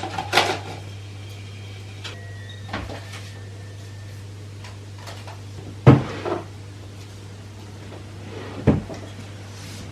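A few separate knocks and bangs, like cupboards or doors being handled, over a steady low hum. The loudest knock comes about six seconds in and another near nine seconds.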